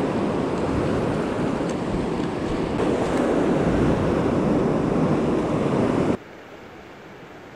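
Rough sea surf breaking and churning against rocks, a loud steady rush with wind buffeting the microphone. About six seconds in it cuts suddenly to a much quieter, steady wash of waves.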